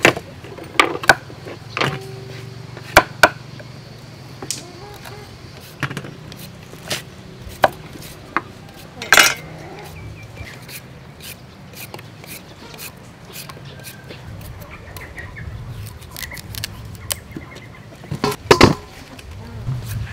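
Cleaver striking a wooden chopping block while cutting sausage links apart: a few sharp knocks in the first three seconds, then scattered single knocks, the loudest near the end.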